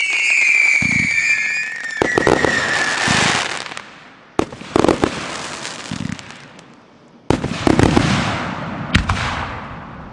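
Consumer firework cake firing. A shrill whistle falls in pitch over the first three seconds. Then come three waves of shots bursting into dense crackling, with low thumps as shots launch from the tubes.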